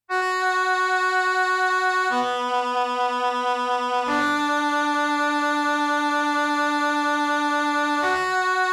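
Isolated synthesizer keyboard part from a synth-pop song: a sustained, overtone-rich synth tone that starts abruptly and moves between held notes. The notes change about every two seconds, and one is held for about four.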